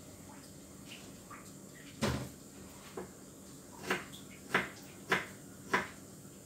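Knife chopping on a wooden cutting board: one heavier thud about two seconds in, a light tap, then four sharp chops evenly spaced a little over half a second apart.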